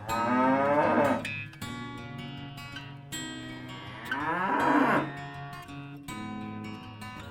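A cow mooing twice: a long call in the first second and another about four seconds in, over acoustic guitar music.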